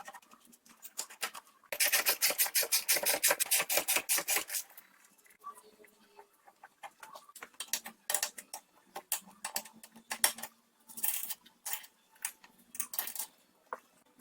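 Ratchet wrench clicking rapidly for about three seconds as the spring compressor is tightened on a front suspension strut's coil spring, followed by scattered metal clicks and clinks of tools on the strut.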